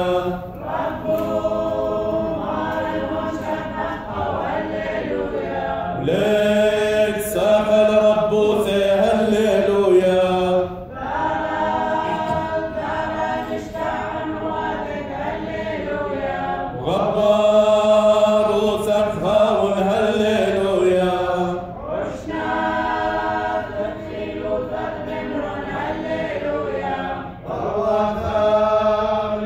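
Unaccompanied liturgical chant of the Assyrian Church of the East, sung by a group of robed clergy and deacons in phrases of about five seconds, with short breaks between them.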